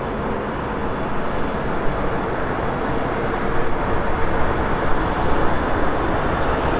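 DB Class 111 electric locomotive approaching, a steady running hum and rumble that grows slightly louder as it comes closer.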